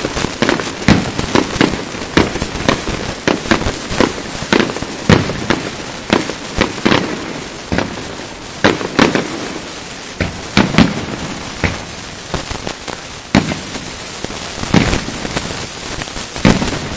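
Fireworks display: aerial shells bursting in quick, irregular succession, several bangs close together at times, over a steady crackling hiss.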